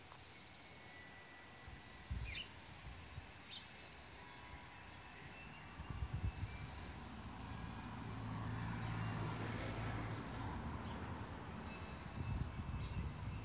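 Small songbirds chirping in short, high notes in quick little groups. Underneath is a low rumble that grows louder about halfway through, with a brief rushing swell in the middle.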